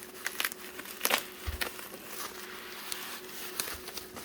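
Bubble-wrap and plastic packaging being handled and unwrapped, with irregular crinkling and crackling and a few sharper ticks.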